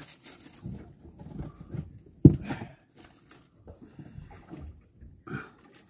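Handline being hauled in hand over hand: soft rustles and scrapes of line and hands, with one sharp knock a little over two seconds in.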